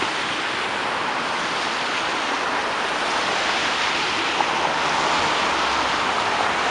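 Steady wash of city street traffic, mostly tyre and engine noise, with a vehicle's low engine hum growing near the end.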